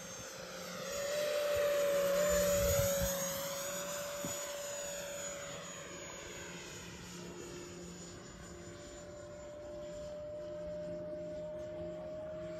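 Fly Fans JAS-39 Gripen 70 mm electric ducted-fan model jet flying past: the fan's steady high whine swells about a second in, is loudest around two to three seconds, then fades to a more distant whine that grows slightly again near the end.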